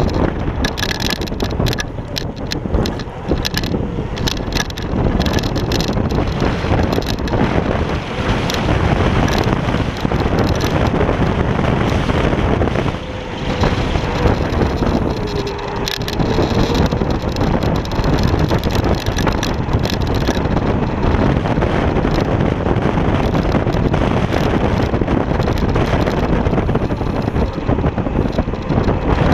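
Steady wind rushing over the microphone of a GoPro Hero 3 mounted low on a Kaabo Wolf King GT electric scooter, mixed with tyre and road noise as the scooter rides along. The noise eases briefly about halfway through.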